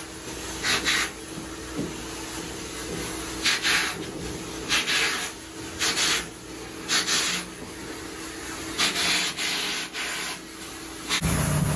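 Vacuum hose nozzle drawn in strokes over a conical stainless-steel mesh dryer lint filter, a rasping hiss with each pass, about seven passes, as lint is stripped from the mesh. Near the end a steady low rumble takes over suddenly.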